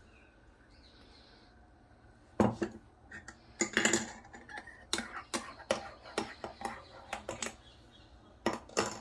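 Metal teaspoon clinking against a ceramic bowl and mug while spooning foam: a run of sharp, irregular clinks starting about two and a half seconds in, then two more near the end.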